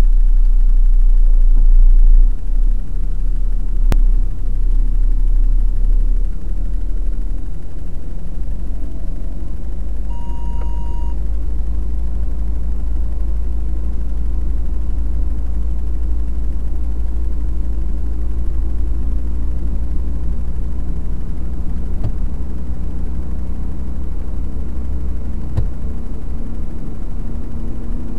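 Steady low rumble of a heavy truck's diesel engine and road noise heard inside the cab while driving at highway speed, heaviest in the first few seconds. A short electronic beep sounds about ten seconds in, and a few faint clicks come later.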